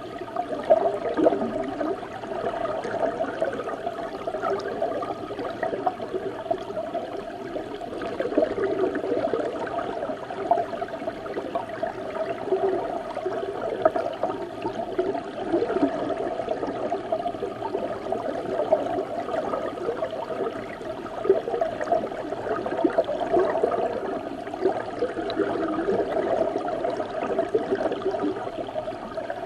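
Running river water heard from underwater in the Doshi River: a steady, muffled churning rush with many small irregular pops and gurgles.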